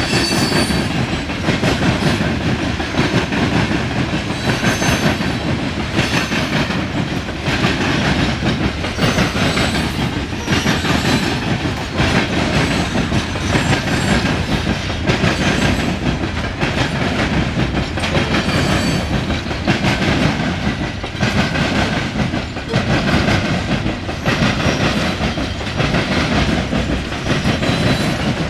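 Loaded coal hopper cars of a freight train rolling past at close range: a steady heavy rumble with the wheels clacking over rail joints in a repeating clickety-clack.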